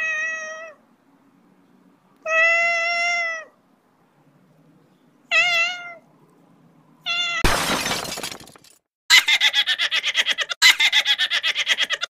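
A cat meowing four times in short separate calls, one with a wavering pitch. Then a short noisy burst, then a fast stuttering call of about ten pulses a second near the end.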